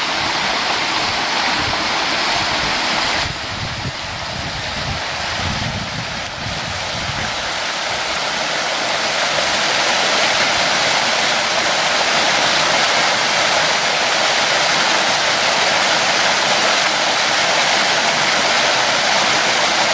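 Rushing water of a creek, a steady loud hiss; it drops suddenly about three seconds in, then swells and holds steady.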